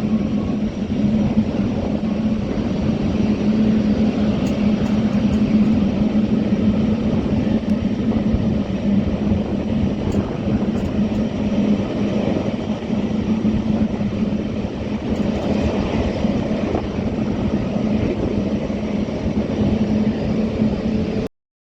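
Jet engines of a Boeing airliner running steadily on arrival, a constant rush with a steady low hum, cutting off abruptly near the end.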